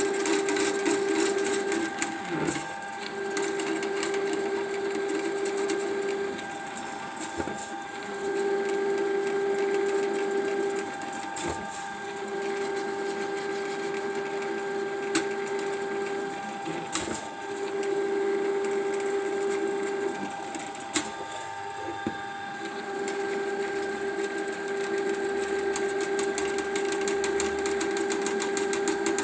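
Ridgid electric drain-cleaning machine running, its motor spinning the cable in the blocked pipe with a steady hum. The hum comes in stretches of a few seconds, dropping away briefly between them, with a few sharp clicks.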